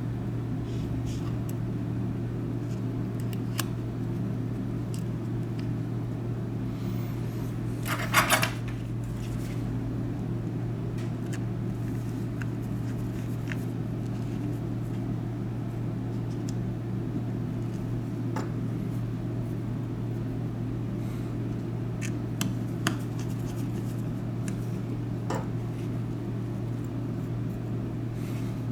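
Small metal repair tools clicking now and then against phone parts over a steady low hum. About eight seconds in there is a brief metallic clatter.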